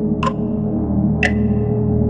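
Dark ambient synth music: a low sustained drone and pad, with a clock-like tick once a second. The ticks alternate between two slightly different strokes, tick and tock.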